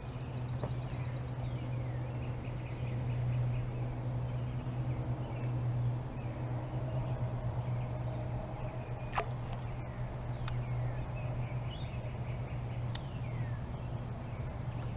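Birds singing and chirping over a steady low rumble, with a few sharp clicks about two-thirds of the way through.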